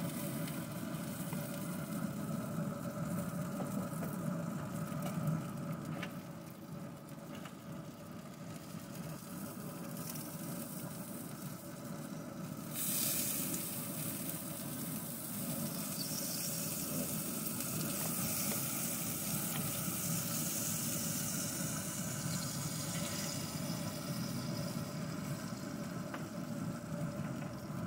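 Open pellet grill running with a steady hum, with meat sizzling on the hot grate; the sizzling hiss grows louder about 13 seconds in as the pork butts are lifted off with tongs.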